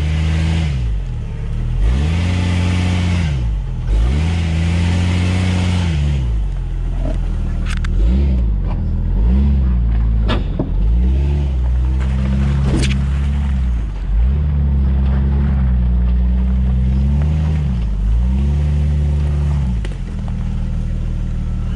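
Jeep Wrangler TJ engine revving up and falling back again and again, about every two seconds, as the Jeep is throttled over rough off-road ground. There is a rush of noise a few seconds in and a few sharp knocks from the Jeep in the middle stretch.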